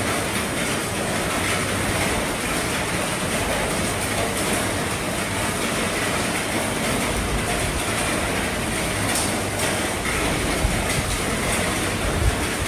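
Heavy rain falling steadily on an RV roof, with an occasional louder drop tapping out of the even hiss.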